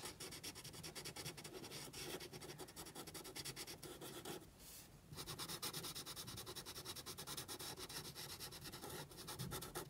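Felt-tip marker scribbling on paper in quick, short back-and-forth strokes as it fills in small circles, faint and scratchy. It pauses briefly about four and a half seconds in, then goes on.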